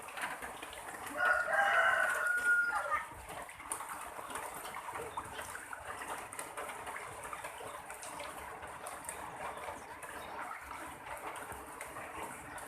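A rooster crows once, about a second in, for roughly two seconds, over the steady rushing of fast-flowing floodwater.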